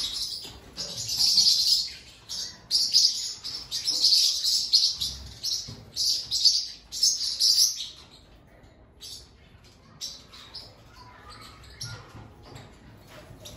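A roomful of caged budgerigars chirping, many quick chirps overlapping, loudest for the first eight seconds or so, then thinner and fainter.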